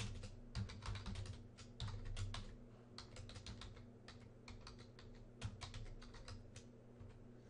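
Typing on a computer keyboard: quick runs of keystrokes with short pauses between them, stopping shortly before the end, over a faint steady low hum.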